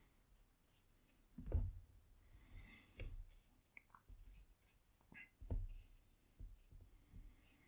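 Faint scratching of a paintbrush stroking watercolour paper, with a few soft low knocks from the hand or brush against the painting board, the first about one and a half seconds in.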